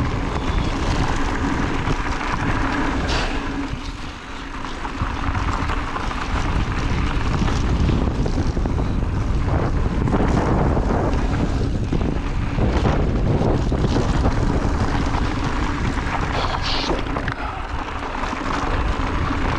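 Wind rushing over the camera microphone and knobby mountain-bike tyres rolling on a dirt trail during a fast descent, with a few sharp knocks along the way.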